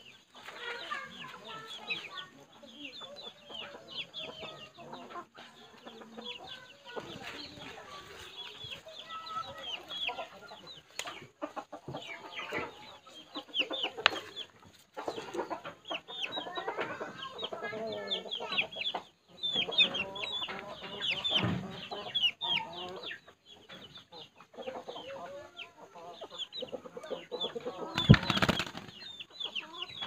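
Domestic chickens clucking, with many short chirps coming and going. A brief, louder noise stands out about two seconds before the end.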